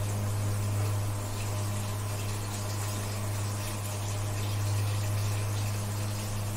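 A steady low electrical hum with an even hiss behind it, unchanging throughout.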